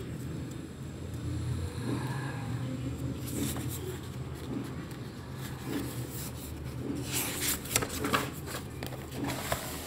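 Paper rustling as a textbook page is handled and turned, strongest in a series of short crackles near the end, over a low steady hum.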